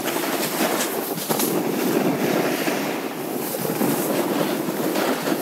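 Steady rush of wind buffeting the camera microphone on a fast descent over snow, mixed with the hiss and scrape of edges sliding on packed snow.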